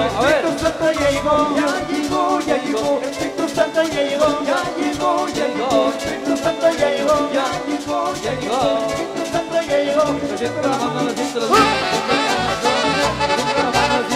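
Live band playing Latin-style gospel music: a trumpet and saxophone melody over bass guitar and a steady beat on conga drums. About eleven seconds in the band comes in fuller and brighter.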